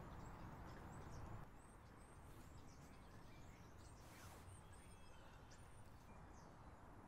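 Near silence: faint outdoor background noise, with a low rumble easing off about one and a half seconds in, and small birds chirping faintly now and then.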